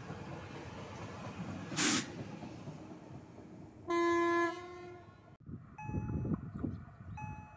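Electric multiple unit running past on the rails, then one short horn blast about four seconds in as it pulls away. After a cut, a level-crossing warning signal sounds in short repeated electronic tones about every second and a half, over a low rumble.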